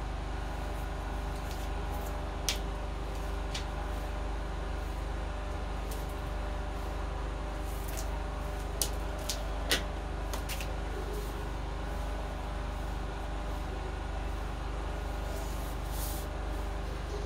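A steady low mechanical hum with a few sharp taps and clicks of a plastic ruler and marker being handled on paper over a wooden table, most of them around the middle. Near the end comes a faint scratch of a marker drawing a line along the ruler.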